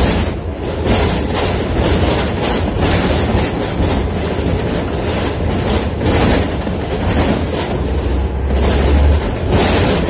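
Scania OmniDekka double-decker bus under way, heard from inside the lower deck: the diesel engine's steady low drone, with constant rattling and clattering from the bus body and interior fittings.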